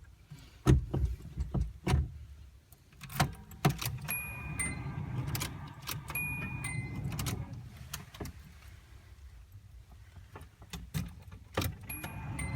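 LS1 V8 in a Nissan 240SX being cranked on the starter without catching, in two spells: a failure to start. Sharp clicks and clunks come first, with the key being handled.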